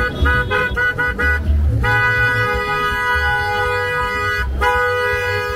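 Car horn honking: a run of short quick beeps, then a long held blast, a brief break and a second long blast. A low rumble of traffic and crowd runs underneath.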